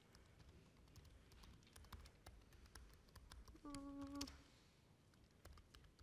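Near silence with faint laptop keyboard typing and clicks. About two-thirds of the way through, a brief steady tone sounds for about half a second.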